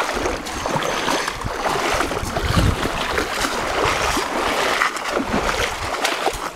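Wind rumbling and buffeting on the microphone as hikers walk, with scattered crunching footsteps on a gravel trail.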